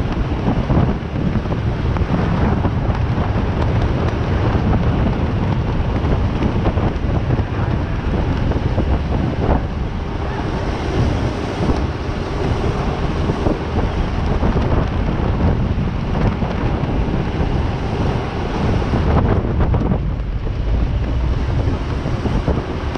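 Loud wind buffeting the microphone: a steady, heavy rumble with hiss and no distinct tones.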